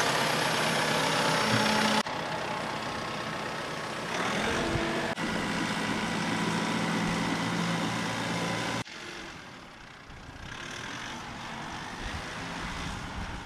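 Massey Ferguson 1759 compact tractor's 59-horsepower diesel engine running steadily just after being started, heard in several edited clips. Its revs rise a little about four seconds in, and it is quieter after a cut about nine seconds in.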